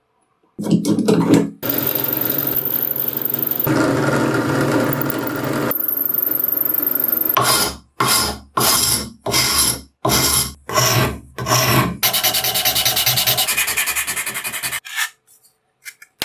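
Abrasive work on the rusty steel of a cleaver being restored: a long run of rubbing and scraping, then about eight separate strokes with short pauses between them, then another steady stretch of fast scraping.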